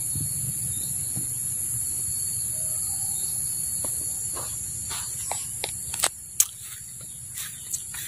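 Steady, high-pitched chorus of tropical forest insects over a low rumble that fades about halfway through. From about five seconds in come irregular soft footsteps on grass and leaf litter, with two sharper clicks about six seconds in.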